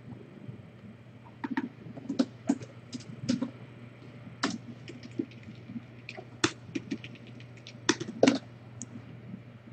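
Typing on a computer keyboard: irregular runs of sharp key clicks with short pauses between them, starting about a second in and stopping near the end.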